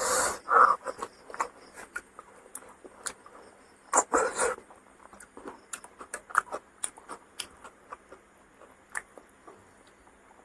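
Close-miked eating sounds: soft, irregular mouth clicks and smacks of chewing, with a couple of louder, brief mouth noises near the start and about four seconds in.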